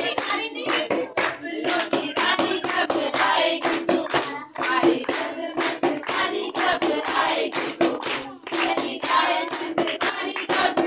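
A group of women singing dholki songs together, with steady rhythmic hand clapping.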